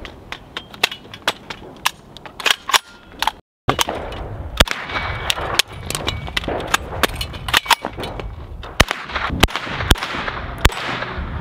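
A rifle fires a quick, uneven string of sharp shots, about three or four a second, with a brief break about three and a half seconds in.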